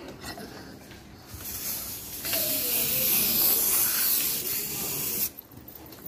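Aerosol spray can hissing in one long continuous spray of about four seconds. It starts about a second and a half in, gets louder about two seconds in, and cuts off suddenly near the end.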